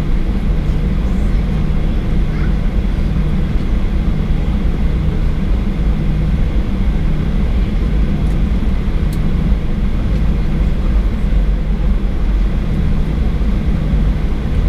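Steady low rumble inside the cabin of a Boeing 737-800, its CFM56 turbofans running at idle thrust while the airliner taxis after landing.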